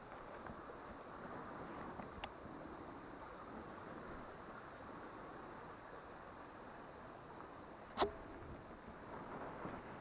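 Steady, high-pitched buzz of insects in summer woodland, with a faint chirp repeating about every second. A single sharp click about eight seconds in is the loudest sound.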